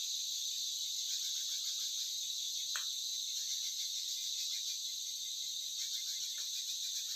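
Crickets chirring steadily in a high-pitched continuous drone, with faint short chirps and a single sharp click about three seconds in.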